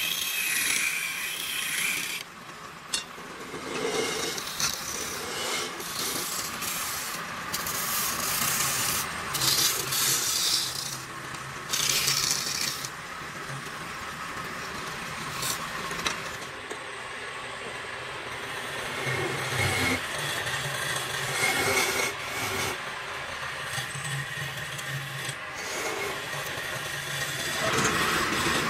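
A wood lathe spins a wooden workpiece while a handheld steel turning tool scrapes and cuts into it, a rough scraping that swells and fades as the tool is pressed in and eased off, over the low hum of the lathe.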